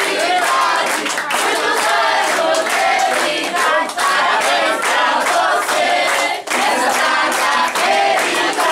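A group of adults and children singing a birthday song together while clapping along.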